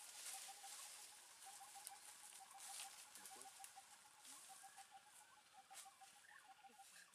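Near silence: faint rustling and crackling of dry brush and branches, with a faint, rapid string of short chirps repeating in runs in the background.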